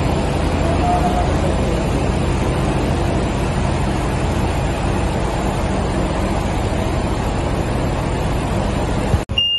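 Steady loud background rumble of vehicle traffic and machinery, a low drone with hiss, that cuts off abruptly near the end.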